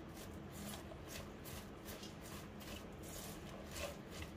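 Finely shredded raw cabbage being tossed and mixed with salt in a steel bowl: a faint, repeated rustle and swish of the cabbage shreds, about three strokes a second.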